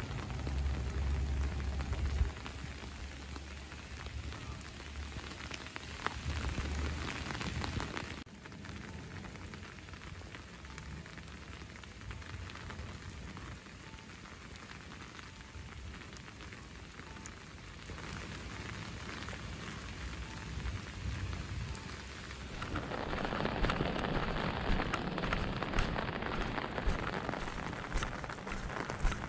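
Steady rain falling. About three quarters of the way through it gets louder, with dense pattering of drops hitting an umbrella held overhead. There is a low rumble near the start.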